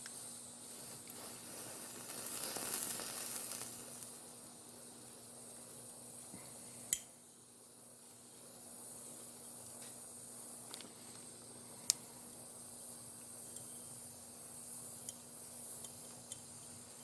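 Small hobby torch flame hissing steadily as it heats a fluxed joint for silver soldering, louder about two to four seconds in. A few sharp clicks, the loudest about seven seconds in, fit the ceramic tile under the work cracking from the heat.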